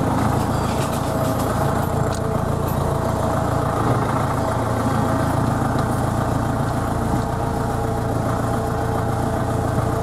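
Tractor engine running steadily at low speed, heard from inside the cab, with a few light rattles in the first few seconds.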